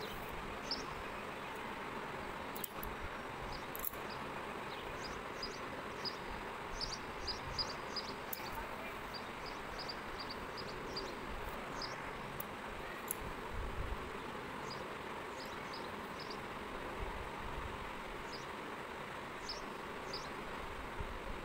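Steady background hiss with many faint, short, high-pitched chirps scattered irregularly through it, and a couple of soft clicks.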